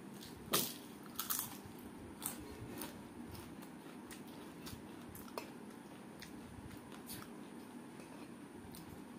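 Crisp fried papad crunching as it is bitten and chewed. There is a loud crunch about half a second in and another just after a second, then a few fainter crunches that die away.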